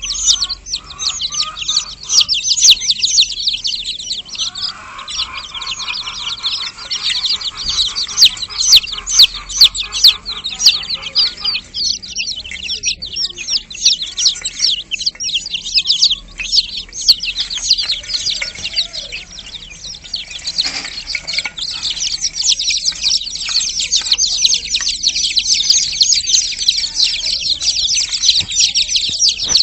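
Chickens clucking under a constant dense chorus of rapid, high-pitched chirping, with a longer stretch of lower, steady clucking from about four to twelve seconds in.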